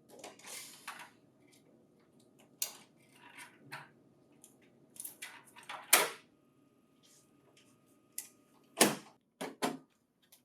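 Irregular plastic clicks, knocks and short rustles as a laser printer is handled and its packing material removed, with the sharpest knocks a little before halfway and near the end.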